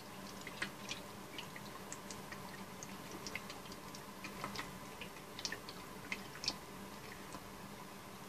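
Shellac solution poured from a glass jar through a paper filter and plastic funnel into a plastic squeeze bottle: faint, irregular small ticks and drips, over a low steady hum.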